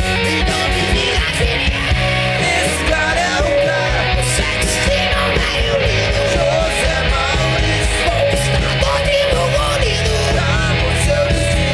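Hard rock band playing live: electric guitars, bass guitar and a drum kit, with a singer's voice coming in over them a few seconds in.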